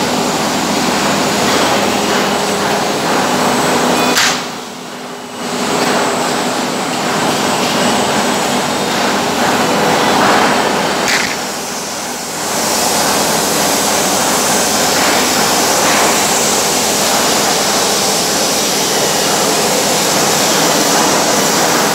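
CNC router cutting grooves: a loud, steady whirring noise from the spindle and cutter. It drops away briefly about four seconds in, and again around eleven seconds.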